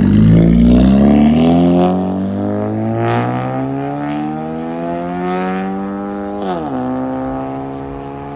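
2009 Honda Civic's four-cylinder engine, straight-piped with no muffler and a 6-inch tip, accelerating away: the exhaust note climbs steadily in pitch, drops abruptly at an upshift about six and a half seconds in, then climbs again as it fades into the distance.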